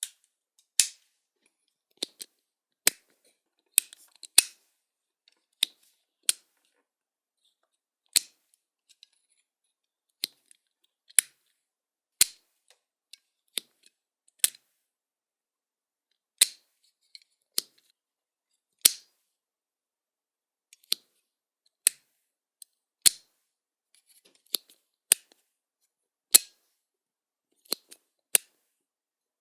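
Covered switch being flicked: repeated sharp, dry clicks at irregular intervals, some single and some in quick pairs or triplets.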